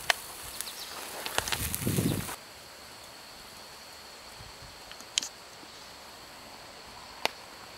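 Steaks sizzling on a wire grill over hot coals, with sharp fat pops, for about two seconds. Then, after a cut, a faint steady pour from a Zebra stainless steel pot into a metal cup, with two sharp clinks.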